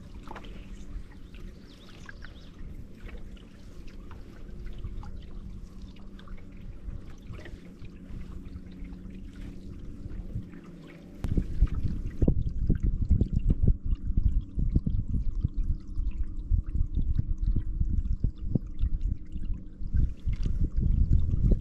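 Canoe paddling on a lake: water pouring and trickling off the paddle blade with each stroke. About halfway in, a much louder uneven low rumbling joins in.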